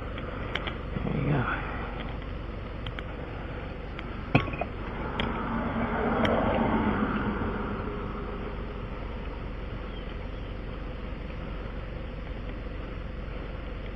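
A vehicle passing on the road, its noise swelling and fading over a few seconds, over a steady background hum, with a few light clicks and one sharp knock about four seconds in.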